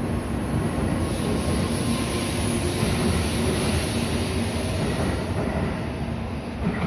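Shinkansen train running past at the station platform: a steady loud rumble and rush with faint tones over it, easing off slightly near the end.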